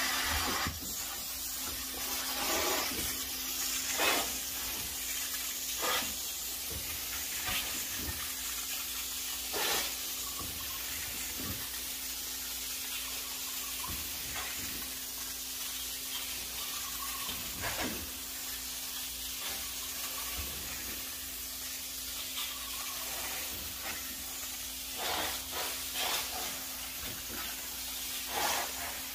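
Upholstery extraction hand tool hissing steadily as its suction pulls over velvet couch fabric in repeated strokes, with a faint steady hum underneath and brief louder whooshes every couple of seconds.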